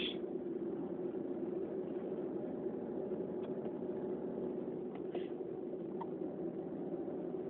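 Steady low background hum, with a faint short breath about five seconds in.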